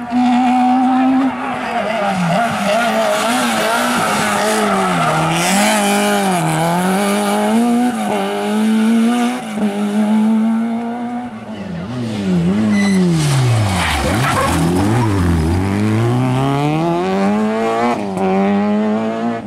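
Rally car engines revving hard through bends and gear changes, several cars one after another. The pitch climbs and drops again and again, with a deep drop about two-thirds of the way through as a car slows hard for a corner, then climbs again.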